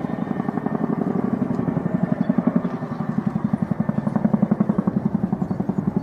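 Chinook tandem-rotor helicopter flying past, its rotor blades beating in a rapid, even rhythm that grows louder over the first few seconds, then eases slightly near the end.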